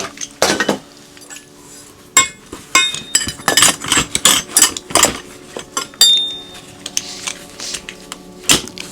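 Metal hand tools clinking and clanking as they are packed into a tool bag: a string of irregular sharp knocks, a couple of them ringing briefly.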